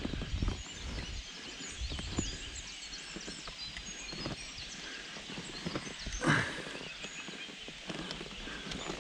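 Handling noise from hands adjusting an electric boat motor's plastic head unit: scattered knocks and clicks, with low bumps near the start and one louder knock about six seconds in. The motor itself is not running.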